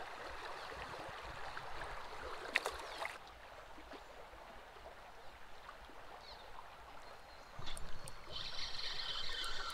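Shallow creek water running and rippling, with a sharp knock about two and a half seconds in. Near the end a high, steady buzz starts over the water sound.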